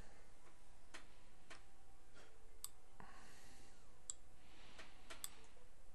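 Metal dental instruments clicking against one another and against the crowns: an explorer and mouth mirror at the screw-access holes of an implant bridge. There are about eight scattered sharp clicks, a few with a brief high metallic ring.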